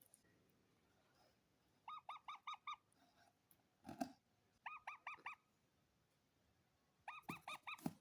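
Indian ringneck parakeet calling in three quick bouts of about five shrill, repeated calls each, with a short knock between the second and third bouts.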